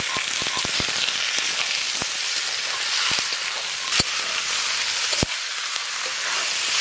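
Raw chicken pieces sizzling in hot mustard oil and spice paste in a karahi: a steady hiss with crackling spatters, densest in the first second, as the meat is mixed into the masala. A few sharp clicks stand out, the clearest about four and five seconds in.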